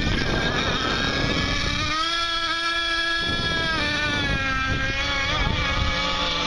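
Radio-controlled 1/8-scale racing boats running at speed on the water. A steady engine whine with several overtones holds for a couple of seconds, then dips slightly in pitch and blends back into the rush of the other boats.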